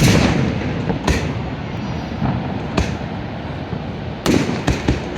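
Fireworks shells bursting: a loud bang at the start, single bangs about a second in and near three seconds, then a quick run of crackling reports near the end.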